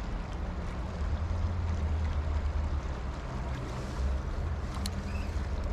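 Steady rushing of river current with a low, even rumble and no distinct events.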